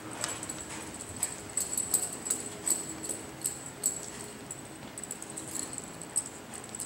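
A cutting horse working a calf on arena dirt: irregular clicks and light jingling from its hooves and tack as it stops and turns.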